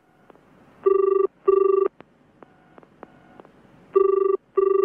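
Telephone ringing in the British double-ring pattern: two short rings, a pause of about two seconds, then two more short rings.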